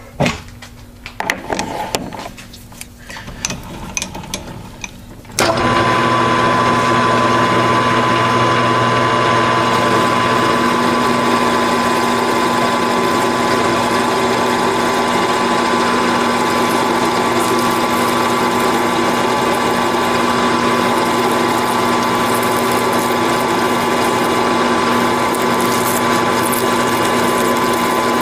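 A few metal clinks and knocks as the bolt blank is reset in the chuck. About five seconds in, the Grizzly G4003G geared-head metal lathe starts suddenly and runs steadily at speed, with a constant gear whine.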